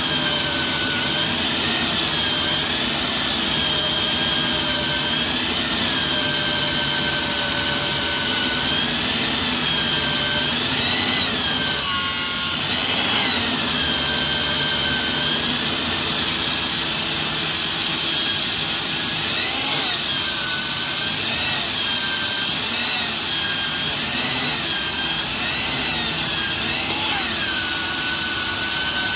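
Concrete core drill motor running with a steady whine whose pitch keeps wavering briefly up and back down, with a short break about twelve seconds in.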